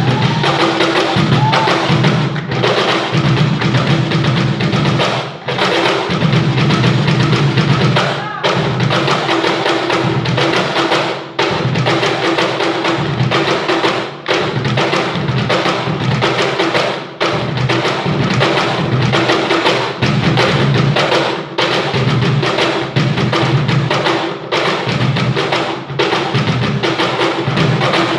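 Peruvian cajón, the wooden box drum, played live in a dense, driving rhythm of deep bass strokes and sharp slaps, with short breaks every few seconds.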